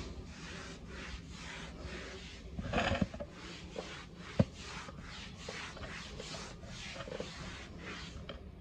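Damp cloth rubbed back and forth over ceramic floor tiles in quick, even strokes, about two to three a second, with a single sharp click about halfway through.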